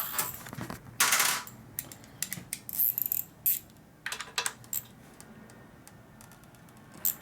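Metal hand tools and small parts clinking and clattering: a series of sharp clicks with a longer rattle about a second in, as sockets and a ratchet are handled while working on a fastener.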